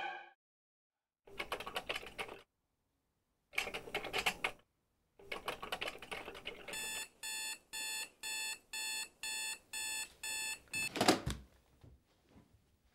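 Mobile phone going off: three rattling bursts of about a second each, then an even electronic beep repeating about twice a second for some four seconds. A loud thump near the end cuts it off.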